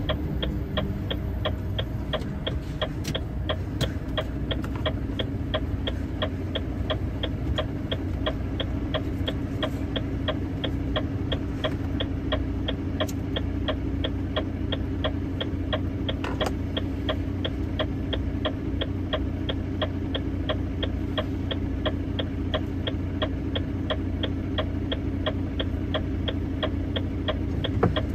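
Turn-signal relay ticking evenly, several ticks a second, over a truck engine idling steadily while stopped, heard inside the cab.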